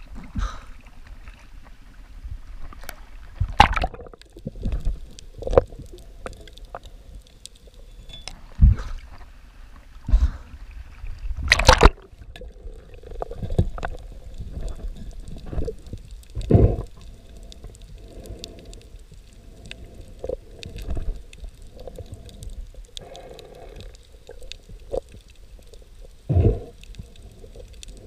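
Water sloshing and bubbling around a camera in the sea as it moves between the surface and underwater, broken by irregular sharp knocks and thumps, the loudest about 12 seconds in.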